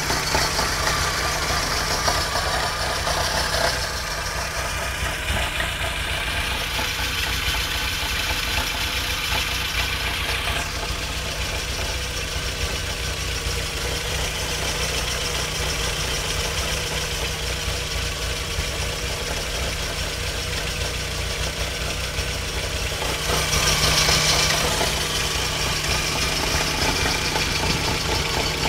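Vehicle engine idling steadily. A thin high whine rises in pitch for several seconds and cuts off suddenly about ten seconds in, and a brief hiss comes near the end.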